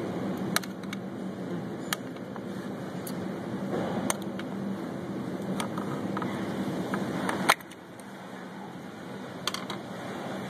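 Light clicks and knocks of gloved hands handling plastic parts and a bolt in the engine bay, over a steady background hum. A louder click comes about three quarters of the way through, and the hum drops after it.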